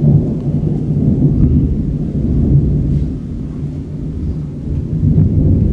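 Thunder from an approaching thunderstorm rolling in one long, uneven rumble that swells and eases.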